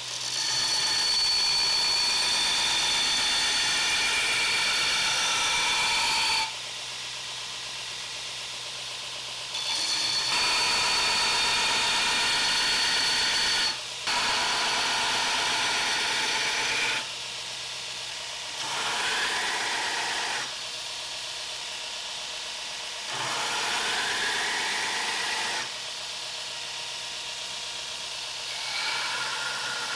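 Belt grinder running with a steel knife blade pressed to the moving abrasive belt to grind its bevel: a harsh high-pitched grinding hiss in repeated passes of several seconds each. The first three passes are the loudest, and the later ones are shorter and quieter, with a rising whine. Between passes the grinder runs on alone with a steady hum.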